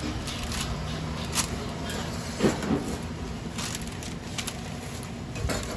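Paper burger wrapper crinkling and rustling as it is handled, while a burger is slid into it on a metal spatula, with a couple of sharper knocks about halfway through.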